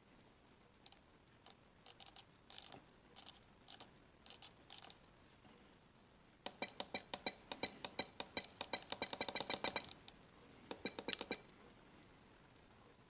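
Small metal tools and parts being handled at a workbench: scattered light clicks, then about three seconds of rapid ringing metallic clicks, and a short burst of clicks near the end.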